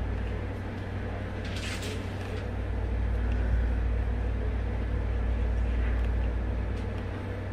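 A steady low rumble, like a running engine, with a short crackle about one and a half seconds in.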